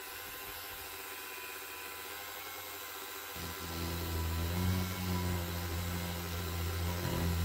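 Dremel rotary tool running with a steady whir, grinding away a moulded-on detail from a plastic scale-model gun part. About three and a half seconds in it grows louder as the bit is put to the plastic.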